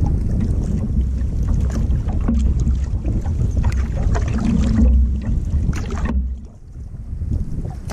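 Wind buffeting the microphone while choppy lake water splashes against the bow of a canoe. The wind rumble eases for a moment about six seconds in, then returns.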